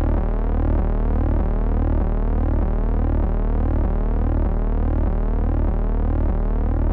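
Loud eerie synthesized drone, a deep hum under layered tones with sweeping pitch arcs repeating about twice a second, laid in as a horror sound effect; it cuts off suddenly at the end.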